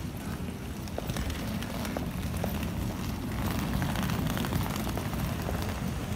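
Street ambience recorded on a phone while walking: a steady low rumble of wind and handling on the microphone, with a few faint scattered clicks.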